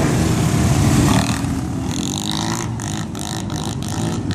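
Motorcycle engine revving as the bike pulls away, its note holding for about a second and then fading into the distance. After that comes a choppy hissing noise.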